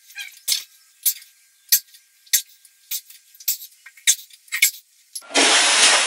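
Iron plates on a pair of spin-lock dumbbells clinking about every half second as they are pressed on a bench. About five seconds in, a louder, longer metal clatter as the dumbbells are brought down.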